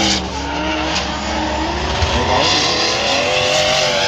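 Drift car's engine revving up and down as it slides sideways through a corner, with tyres squealing under heavy tyre smoke.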